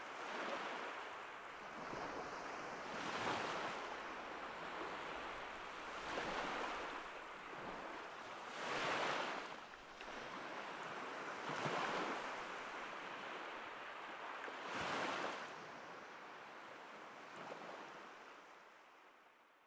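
Sea waves breaking and washing over a rocky shore, swelling louder about every three seconds, then fading out near the end.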